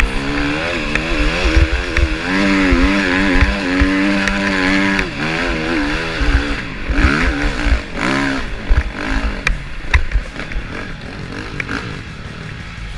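KTM EXC enduro motorcycle engine under throttle on a dirt trail, holding steady revs for a few seconds and then revving down and up repeatedly as the rider works through the terrain. Low thuds and clatter from the bike bouncing over rough ground run through it.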